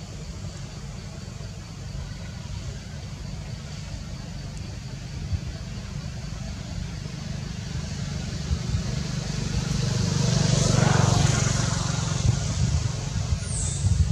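A road vehicle passing by, growing louder over several seconds to its loudest about eleven seconds in, then fading, over a steady low rumble.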